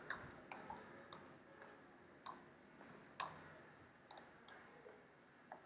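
Faint, irregular keystrokes on a computer keyboard as code is typed, about ten scattered clicks with short pauses between them.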